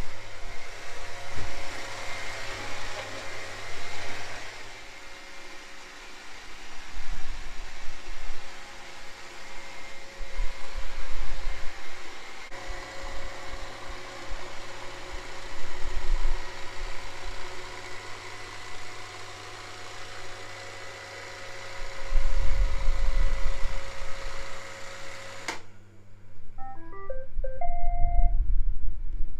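iRobot Roomba robot vacuum running its vacuum motor and brushes with a steady whine, which cuts off suddenly about 25 seconds in, followed by a short run of electronic beeps as it settles on its charging dock. A few low thuds come around 22 seconds in and near the end.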